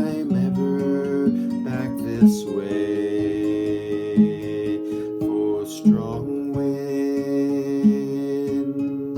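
Acoustic guitar playing the closing instrumental of a folk song. The chords ring on, with a sharp strum about every two seconds.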